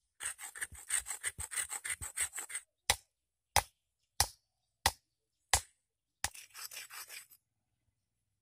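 A stone axe head being shaped by hand on a large rock. First comes a run of quick back-and-forth grinding strokes, stone on stone. Then come five sharp stone-on-stone knocks about two-thirds of a second apart, and then about a second more of grinding.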